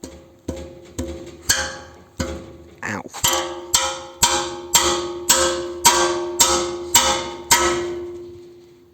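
A metal part being struck over and over, about two blows a second, each one ringing at the same pitch and dying away, the blows growing louder through the middle.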